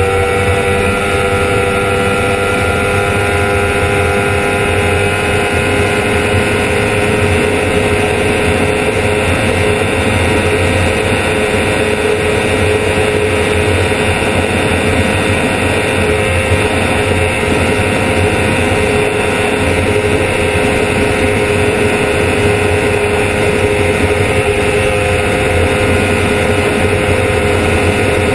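Honda CBR1000RR's inline-four engine at high revs, running flat out near top speed in top gear: a steady, loud engine note whose pitch creeps slightly upward, over heavy wind rush on the bike-mounted microphone.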